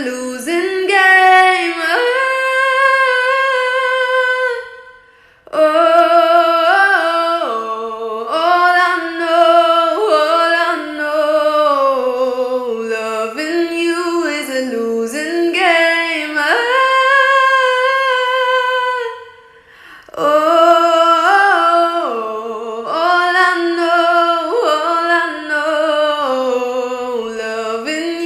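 A single high voice singing a melody with long held notes, breaking off briefly about five seconds in and again near twenty seconds.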